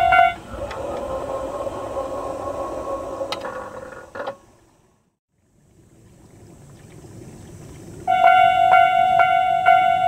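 Tobu-type level-crossing alarm ringing in a quick repeating electronic ding, stopping just after the start. A steady mechanical hum follows for about four seconds and cuts off suddenly. After a short silence the alarm starts ringing again about eight seconds in.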